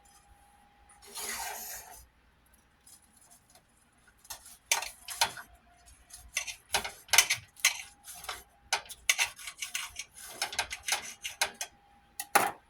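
Kitchen utensils and dishes clattering: a brief rough scrape about a second in, then a run of short clicks and knocks.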